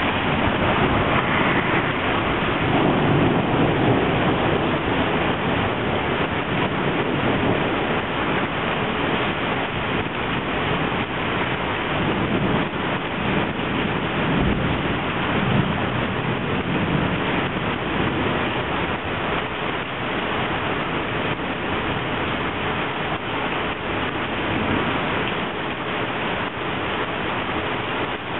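Rain pouring onto a flooded street: a steady hiss of water, with louder low surges a few seconds in and again around the middle.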